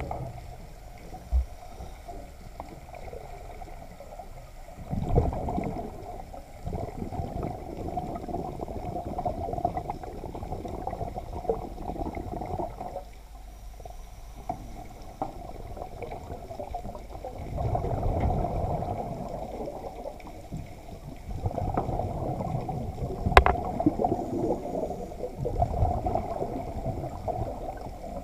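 Muffled underwater sound heard through a camera housing: a rushing, gurgling wash that surges every few seconds, with a few sharp knocks, the loudest near the end.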